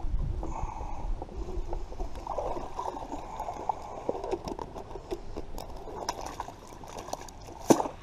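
Water splashing and gurgling around a fish basket holding a live bluegill. Light knocks and clicks are scattered throughout, with one sharper click near the end.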